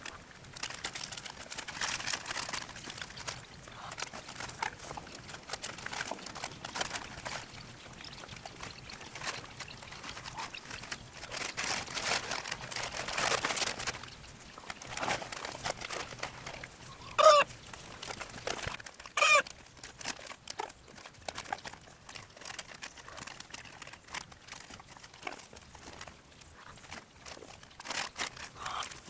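Backyard chickens clucking, with two loud, pitched hen calls about two seconds apart past the middle, over a steady scratchy rustling.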